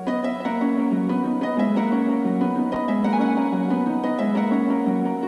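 Instrumental background music: a melody of separate notes moving step by step.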